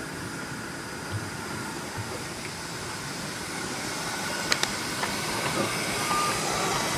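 Miniature 2-4-2 steam locomotive 'Sandy River' approaching and passing close with its coaches: a steady hiss of steam and running noise growing louder, with a few sharp clicks about four and a half seconds in.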